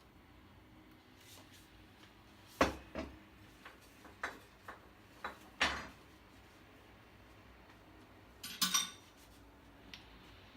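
Sharp taps and knocks on a rusted gas-stove part that has been oiled with cooking oil, to work it loose. Then one ringing metal clink about two seconds before the end.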